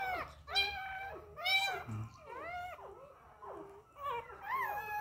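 Two-week-old puppy crying: a run of short, high-pitched whining cries, each rising then falling in pitch, about two a second.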